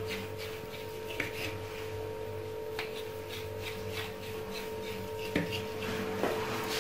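Knife cutting through a sheet of semolina dough and meeting the stone counter beneath, a few faint scrapes and ticks, over a steady low hum.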